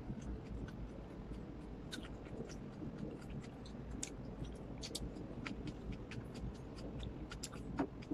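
Faint eating sounds: a person chewing, with many small scattered clicks and light scrapes as food is picked from a porcelain bowl and eaten.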